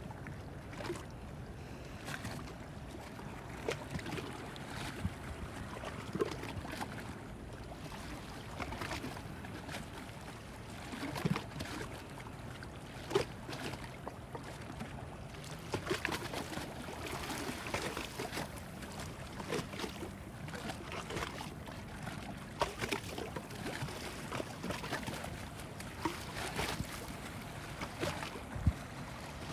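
Lake freighter sailing upriver: a steady low rumble and water sounds, with frequent small clicks and bumps scattered throughout.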